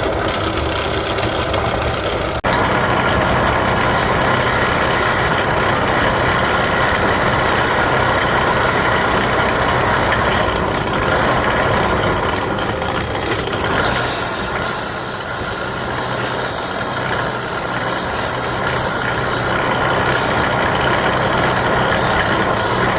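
Wood lathe running steadily, with a brief break about two and a half seconds in.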